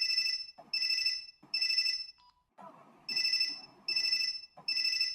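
An old Panasonic mobile phone's ringtone: a run of short electronic beeps, a little more than one a second, with a pause after the third.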